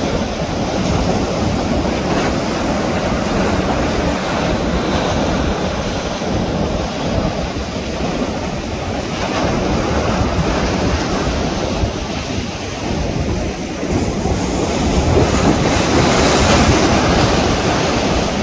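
Ocean surf breaking and washing in, a steady rushing wash that swells and eases, loudest for a few seconds near the end. Wind buffets the microphone underneath.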